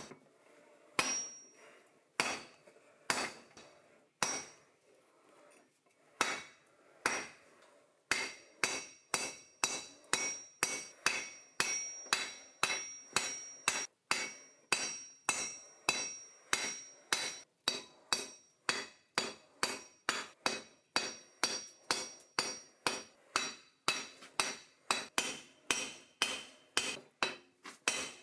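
Blacksmith's hammer striking hot steel on an anvil: a few scattered blows, then from about eight seconds in a steady run of blows, roughly two to three a second, with a high metallic ring.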